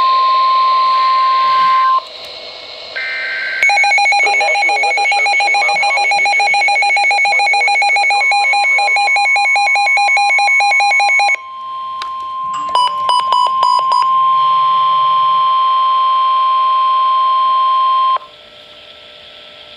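NOAA Weather Radio warning alarm tones. A steady, loud, high single tone breaks off after about two seconds. A rapid electronic beeping alarm then runs for several seconds. The steady tone returns under the beeping and holds until it cuts off suddenly near the end, leaving a faint hum.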